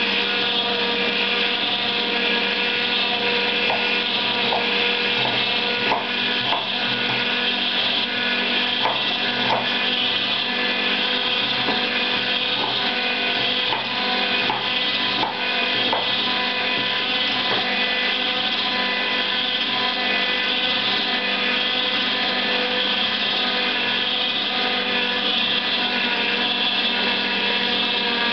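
Zelmer JP 1500 vertical slow juicer running steadily, its motor humming with a fixed whine as it presses pineapple. A knife knocks on a wooden cutting board a dozen or so times between about four and sixteen seconds in, chopping pineapple into cubes.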